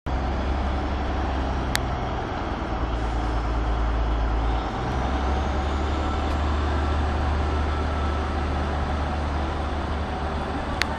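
Underfloor Cummins diesel engines of single-car Class 153 diesel multiple units running as one unit pulls away, a steady low drone that changes note about halfway through. Two sharp clicks sound, one near the start and a louder one near the end.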